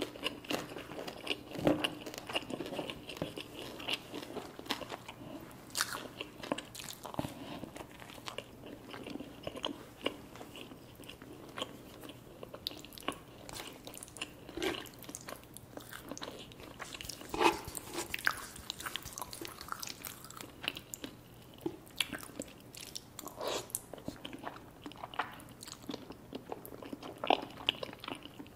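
Close-miked eating sounds: chewing and biting with irregular crunchy mouth clicks, from a meal of creamy Alfredo pasta and chicken wings.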